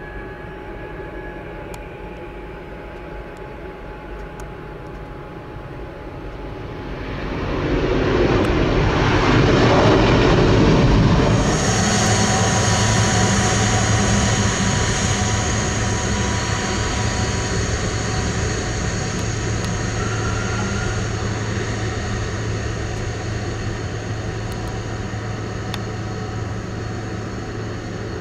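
Airbus A330 airliner's twin jet engines passing close: a rush that swells to its loudest between about seven and eleven seconds in, sweeping down in pitch, then a steady high whine over a low drone, slowly fading.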